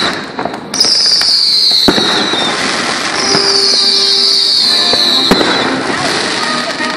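Fireworks going off: two whistling shells, each giving a long whistle that falls in pitch, over steady crackling. There are sharp bangs about two seconds in and again about five seconds in.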